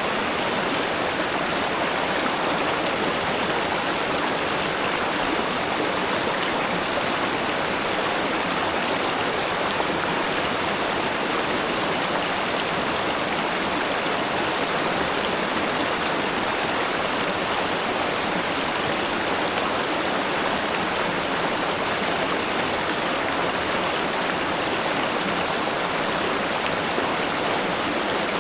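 River water flowing steadily, a constant even rush with no breaks.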